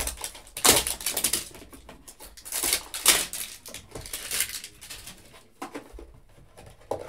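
Plastic wrapping crackling and cardboard rustling in irregular bursts as hands open a 2020 Mosaic football trading card box and pull out a pack.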